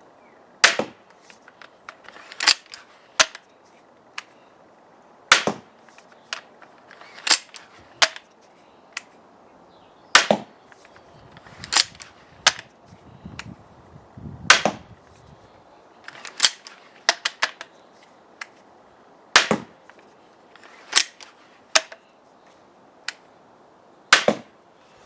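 EK Archery Cobra Adder pistol crossbow cocked and shot repeatedly from its 7-shot magazine: a series of sharp snaps and clicks every one to three seconds, some in quick pairs, as the string is released and the action is worked for the next bolt. The magazine feeds without jamming.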